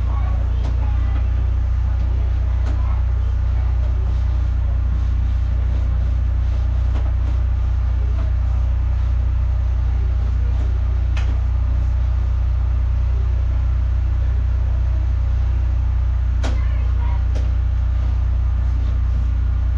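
An engine running steadily at idle, a constant low drone, with a couple of sharp clicks partway through.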